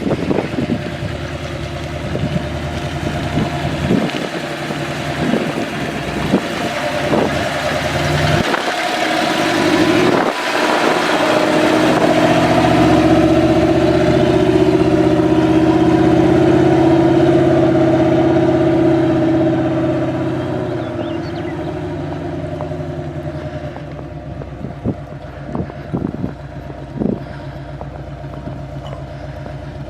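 A motor vehicle's engine running steadily. It grows louder over a few seconds to a long peak in the middle, then fades, with scattered short knocks throughout.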